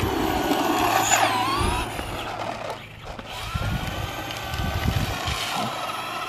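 Radio-controlled car's motor whining as the throttle is worked, with a rising and falling pitch about a second in, and its tyres crunching on gravel. After a short lull near the middle, a long rising whine follows as the car speeds away.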